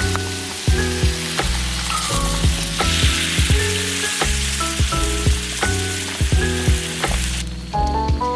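Food sizzling and frying in a pan. The sizzle cuts off suddenly near the end, under background music with a steady beat.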